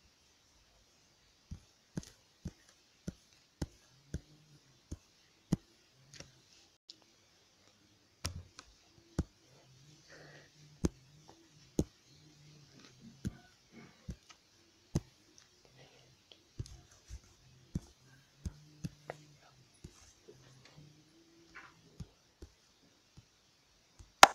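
Sharp, irregular clicks and taps, roughly one every half-second to second, from taps on a phone's touchscreen while drawing.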